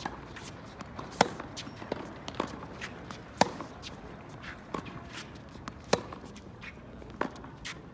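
Tennis balls struck by racquets in a baseline groundstroke rally on a hard court, with the ball bouncing between shots. The loudest hits, from the near player, come about every two and a half seconds, with fainter hits and bounces from the far end in between.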